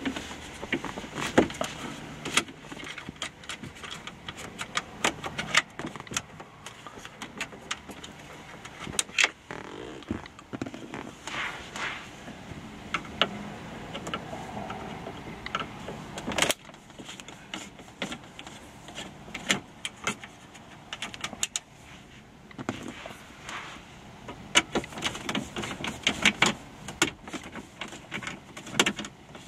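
Phillips screwdriver turning out the small screws that hold a car radio in the dash: irregular clicks, ticks and scraping of metal on metal and plastic.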